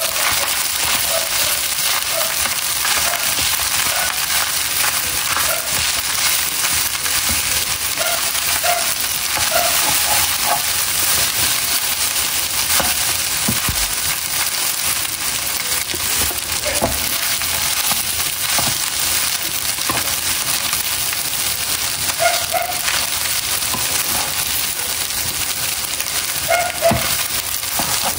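Leftover cooked rice frying with garlic in a wide pan, a steady sizzle, with a wooden spatula scraping and turning it through the pan now and then.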